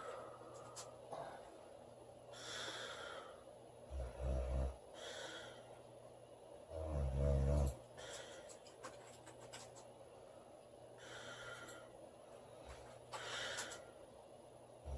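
A woman snoring in her sleep: two loud, low buzzing snores about four and seven seconds in, each followed by a breathy exhale, with quieter breaths between them.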